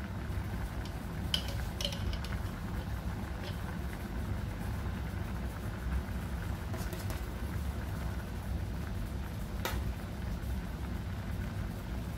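A coconut-milk curry bubbling at a steady boil in a steel pot on a gas burner, with a few light clicks.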